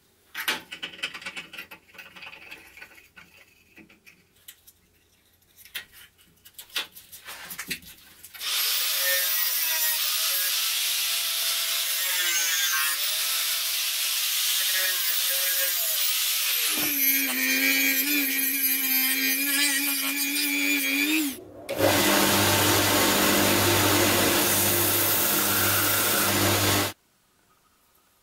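Light clicks and taps as a small metal piece is handled, then a power tool cutting and grinding the metal piece, loud and steady, in several runs with a short stop about 21 seconds in, cutting off abruptly near the end.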